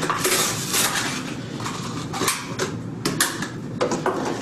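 A rigid plastic clamshell package holding a new toilet flapper is pried open and handled, giving irregular crackles and snaps of stiff plastic in several runs.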